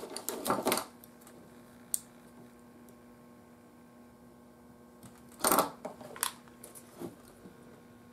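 Small hard items clicking and clattering on a workbench as hand tools and parts are picked up and set down: a short cluster of clicks right at the start, a single click about two seconds in, and a louder clatter a little past halfway. A faint steady low hum lies underneath.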